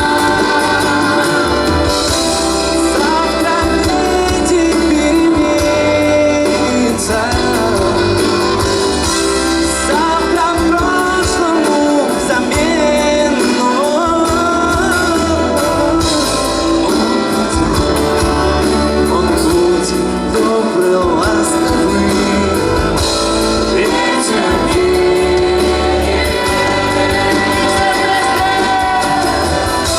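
Live band music with singing, several voices together, at a concert.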